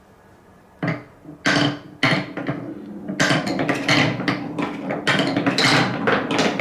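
Marbles rolling and clattering down plastic TrixTrack wave-slope marble-run track: a few separate clicks about a second in, then dense, continuous clattering from about three seconds in.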